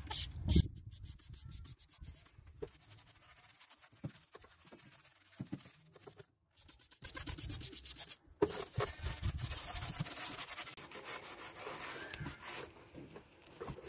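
Paintbrush bristles scrubbing wet engine degreaser over the ribbed intake manifold in quick, rhythmic strokes, with a cloth wiping the part near the end.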